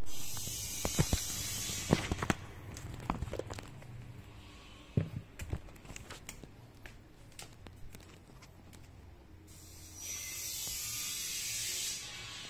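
An LG KG200 mobile phone being handled: a scatter of sharp clicks and knocks, thickest in the first few seconds and sparser later, with a steady hiss for about two seconds near the end.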